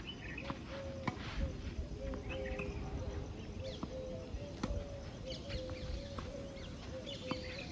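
Tennis balls struck by rackets in a rally, a few sharp pops, the clearest about a second in and again past the middle. Under them a bird calls over and over in short, flat, evenly pitched notes, with a low rumble beneath.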